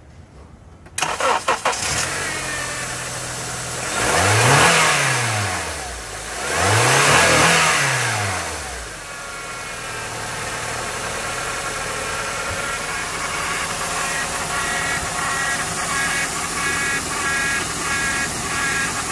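A 2007 Honda Accord's i-VTEC four-cylinder engine cranks briefly and starts about a second in. It is revved up and back down twice, then settles into a steady idle.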